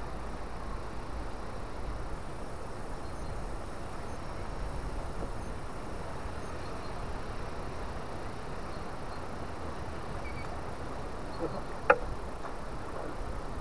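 Steady outdoor background noise, an even rushing with most of its weight low down, with faint high chirps and a single sharp click about twelve seconds in.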